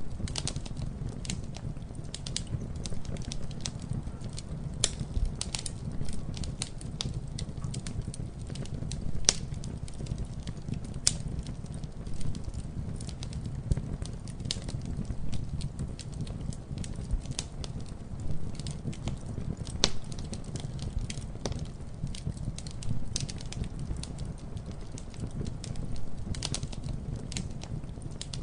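Campfire burning steadily with a low rumble of flames and irregular sharp crackles and pops of burning wood.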